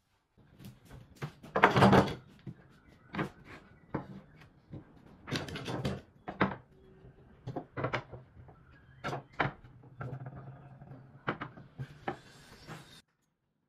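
Wood chisels and pallet-wood boards being set down and shifted on a wooden workbench: an irregular string of knocks and clacks, the loudest about two seconds in.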